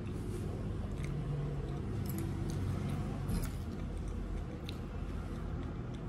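A spoon clinking lightly against a bowl a few times while eating, over a steady low room hum.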